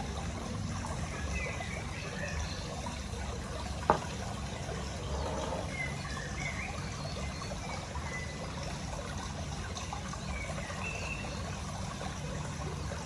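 Water trickling steadily, with a single sharp click about four seconds in.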